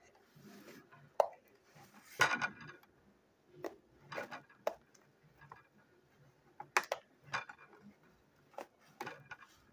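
Scissors snipping and scraping at the edge of a cardboard box to cut it open: irregular sharp snips and clicks with short papery scratches, several of them loud.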